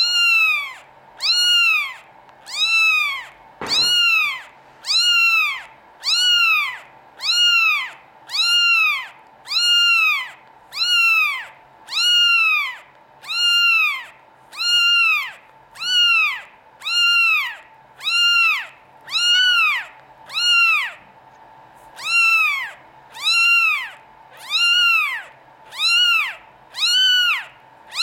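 Newborn Norwegian Forest Cat kitten mewing over and over, thin high-pitched cries that each rise and fall, about one every three-quarters of a second, with one brief pause about three-quarters of the way through.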